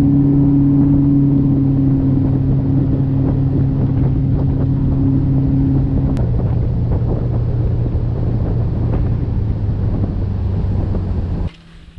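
Motorboat engine running at speed with wind buffeting the microphone, a steady hum over rushing noise. About six seconds in, the engine note drops lower. The sound cuts off suddenly near the end.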